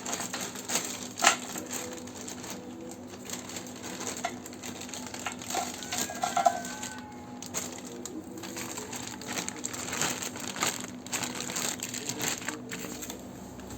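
Scattered clicks, light clatter and crinkling as compressor parts and packaging are handled, over a faint steady hum.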